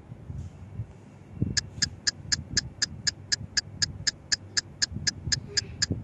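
A fast, even series of short high chirps, about four a second, starting about a second and a half in. It sounds like an added cartoon-style sound effect over faint room noise.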